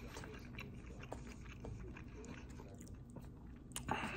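A person chewing food close to the microphone, with soft wet smacking clicks, over a low steady hum. A short louder noise comes just before the end.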